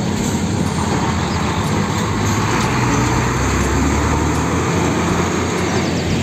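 Heavy trucks driving by on a road: a steady low engine rumble with tyre and road noise, swelling slightly around the middle, then cutting off abruptly.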